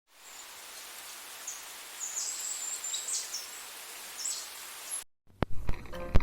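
Steady outdoor hiss with a few short, high bird chirps, which cuts off suddenly about five seconds in; after a brief silence, plucked acoustic guitar music begins near the end.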